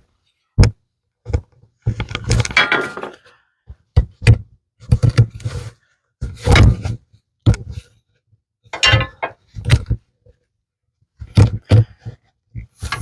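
Wooden parts being handled and worked by hand: irregular thunks, knocks and short clattering scrapes, with brief silences between them.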